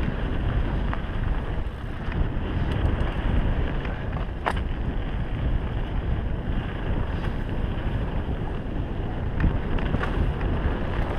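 Wind noise on the microphone over the steady rumble and rattle of a mountain bike rolling down a dirt singletrack, with a few sharp clicks, the clearest about halfway through.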